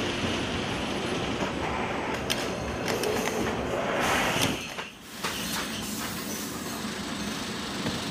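Shrink-wrap bundling machine running: a steady mechanical rumble from its conveyors and drives, with a few sharp clicks and clacks. The sound dips briefly about five seconds in.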